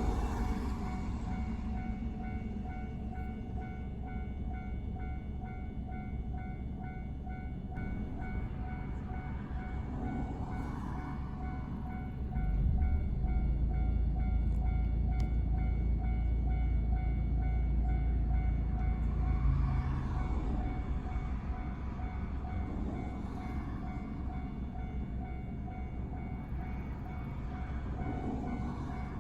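Train running on the rails: a steady low rumble that grows louder about twelve seconds in and eases back about twenty seconds in.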